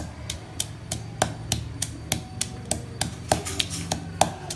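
Stone pestle pounding red chilies and garlic in a heavy stone mortar, a steady rhythm of about three knocks a second, crushing them to a fine paste.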